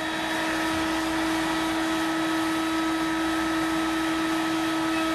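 Router in a router table running steadily with a constant high whine, easing the edges of a quarter-sawn white oak tabletop with a 1/8-inch radius bit.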